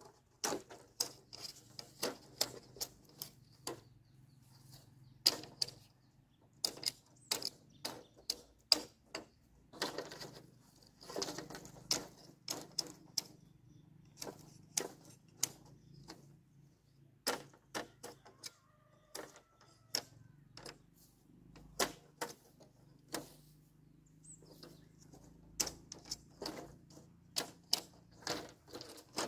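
Machete chopping and splitting bamboo: many sharp knocks and cracks in irregular runs, several a second at times, with short pauses between.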